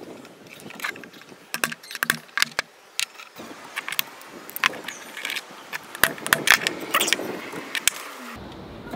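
Small hammer tapping tiny nails into a miniature wooden pallet: a run of light, sharp, irregular taps. Background music comes in near the end.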